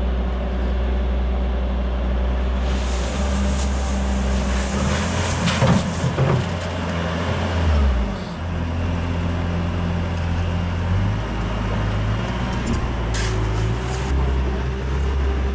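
A skid steer's diesel engine running, its speed shifting up and down several times. A rushing, hissy noise rises over it from about three to six seconds in.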